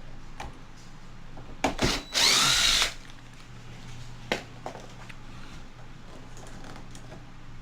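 Power drill run briefly, spinning up for under a second about two seconds in just after a short blip, backing a screw out of the old door lock hardware. A few light clicks and taps of handling come before and after.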